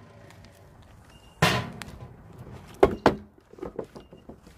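Plastic food-storage container and its snap-lock lid being handled on a table: a sudden clatter about one and a half seconds in, then two hard knocks and a few small clicks near the three-second mark.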